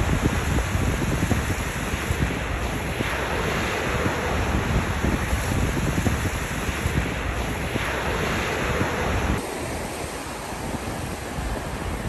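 Small ocean waves breaking and washing up the sand at the water's edge, swelling twice a few seconds apart, with a low rumble of wind on the microphone. About nine seconds in, the sound changes abruptly and the rumble drops away.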